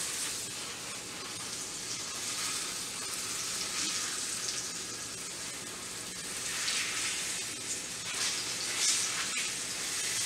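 Beef rump roast searing in a hot pan, sizzling steadily as its outside browns, with a few louder swells of sizzle in the second half.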